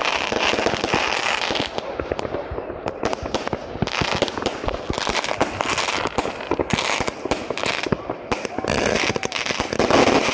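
Many fireworks going off at once: a dense, unbroken run of crackles and bangs, with a hiss near the start.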